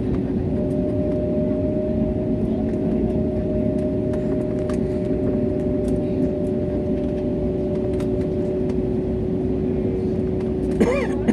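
Airliner cabin noise: a steady engine drone and rushing air with a constant low hum tone. Near the end a brief sound glides up and down.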